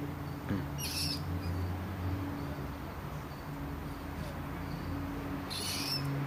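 Cornered wild rat squealing twice, short harsh high-pitched squeaks about four and a half seconds apart, over a steady low hum.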